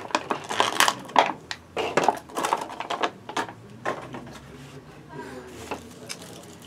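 Clear plastic packaging bags crinkling and crackling in irregular bursts as they are opened and handled, thinning out over the last couple of seconds.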